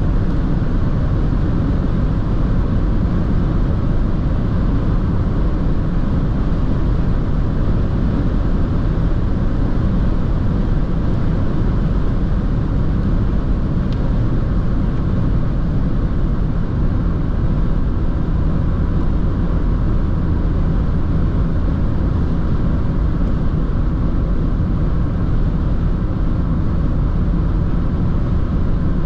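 Dacia Jogger's 1.0-litre three-cylinder turbo petrol engine (TCe 110) and tyres while driving: steady, unchanging engine and road noise, with no revving. One faint click about halfway through.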